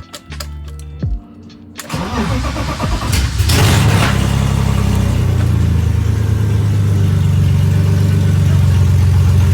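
1984 BMW E30 engine turning over and catching about three and a half seconds in with a burst of revs, then settling into a loud, steady idle. It is running with no exhaust system fitted.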